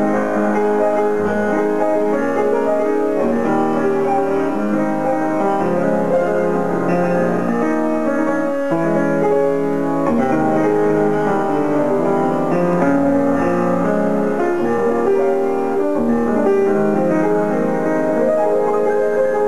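Broadwood grand piano being played: a continuous flow of chords and melody, with notes left ringing into one another.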